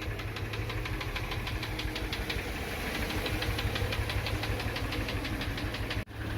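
Subaru Tribeca's 3-litre flat-six idling with a fast, even metallic knock, about six or seven knocks a second. The knock is of unknown cause, the kind that first suggests worn bearing shells, and it is heard here during a hydrogen carbon-cleaning treatment. The sound cuts out briefly near the end.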